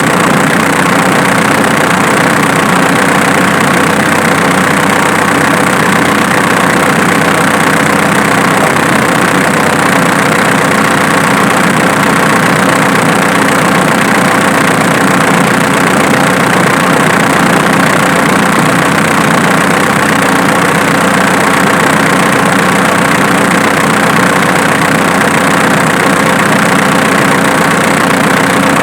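Diesel engine idling steadily at workshop volume. The engine's snapping noise was traced to the alternator, not the injection pump.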